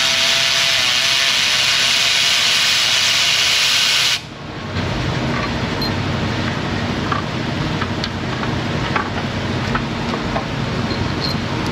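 Loud steady hiss of gas venting from an R-134a A/C refrigerant recovery machine for about four seconds, cutting off suddenly. After it, the machine runs on with a steady low hum while a few light tool clicks sound.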